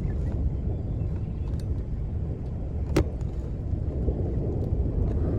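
Steady low rumble of a car, heard from inside, with one sharp click about three seconds in.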